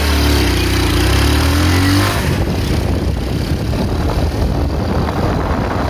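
Engine of the moving vehicle carrying the microphone, humming and rising slightly in pitch as it speeds up; after about two seconds the hum gives way to a rough rumble of wind and road noise.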